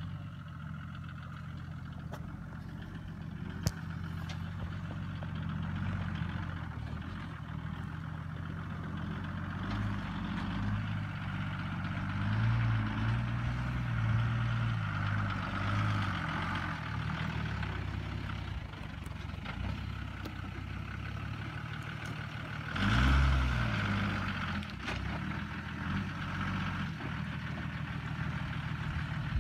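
Toyota LandCruiser 80 Series' 1HD-T 4.2-litre turbo-diesel straight-six running at low revs as the truck crawls through deep muddy ruts, with a short, louder burst of revs about three quarters of the way through.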